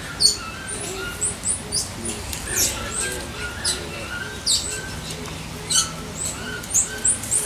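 Many short, high-pitched animal chirps and squeaks, several a second, some sweeping up or down in pitch.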